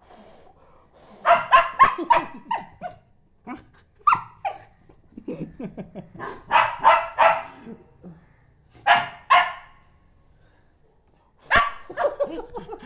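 Small dog barking in about five bursts of quick, sharp barks with short pauses between, a protest at having its tail blown on.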